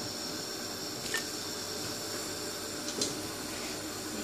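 Hot oil sizzling steadily from deep frying, with two light clicks about a second and three seconds in.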